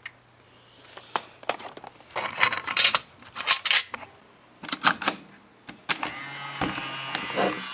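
Plastic clicks and clatter of a VHS cassette being pulled from its cardboard sleeve and handled at a VCR's cassette slot, followed about six seconds in by a steady mechanical whirring hum.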